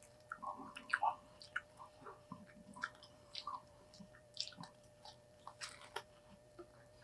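Close-miked chewing of burgers: irregular wet smacks and small clicks of mouths eating, with a faint steady hum underneath.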